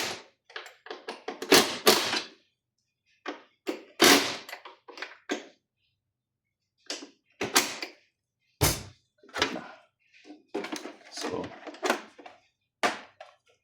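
A string of separate knocks, clicks and scrapes, with short gaps between them, as parts of a Mindray SV300 ventilator are handled and fitted back together.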